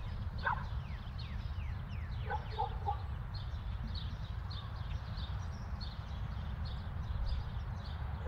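Outdoor ambience of birds calling: short high chirps repeating a few times a second, a few falling whistled notes, and clusters of short, lower calls, over a steady low rumble.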